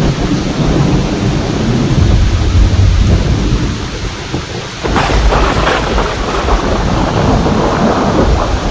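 Thunder rumbling over steady heavy rain, with a sharper thunderclap breaking about five seconds in and rolling on afterwards.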